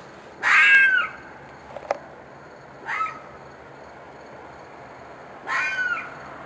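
An animal's screeching, crying scream, given three times. Each call lasts under a second and rises then falls in pitch; the middle call is shorter and quieter. The recordist thinks it may be a fox or a coyote and that it seemed to be in distress.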